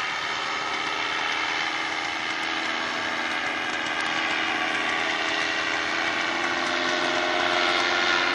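Paramotor in flight: its engine and propeller running with a steady drone that grows a little louder near the end.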